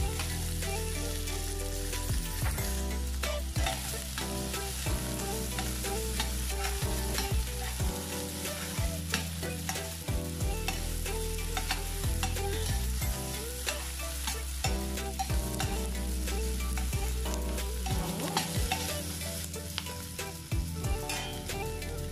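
Chopped onion, carrot and green bell pepper sizzling in oil in a stainless steel frying pan, with a metal spatula scraping and clicking against the pan as they are stir-fried. A steady low hum runs underneath.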